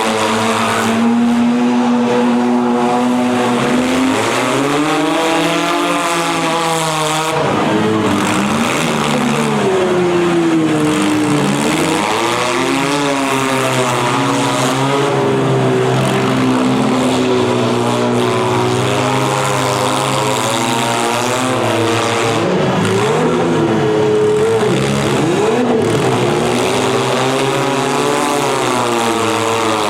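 Several demolition derby cars' engines revving, their pitches rising and falling and overlapping.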